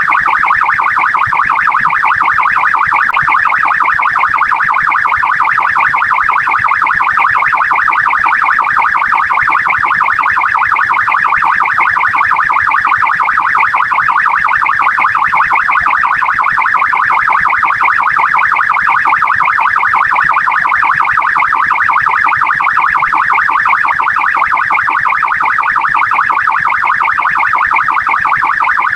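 Australian police car siren sounding continuously in a fast warble, its pitch pulsing rapidly and evenly many times a second without a break.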